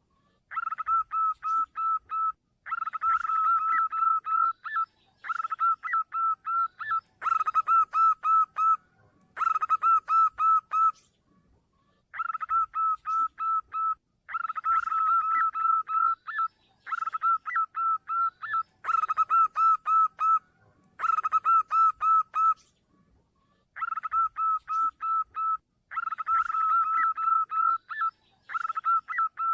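Zebra dove (perkutut) cooing, the lure call used to draw the birds in. It sings repeated phrases of quick, even notes at one steady pitch, about one phrase every two seconds, with short pauses between them.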